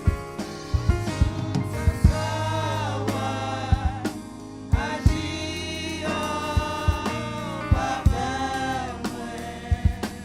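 Gospel music: a choir singing over bass and drums with a steady beat.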